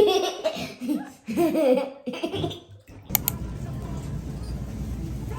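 A child laughing and giggling in several high bursts. A little after three seconds in, two sharp clicks are followed by a steady low rumbling noise.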